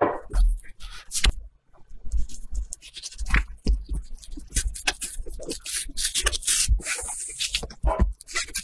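Knife blade scraping along salmon skin against a cutting board as a fillet is skinned: irregular rubbing and scraping strokes with occasional dull knocks.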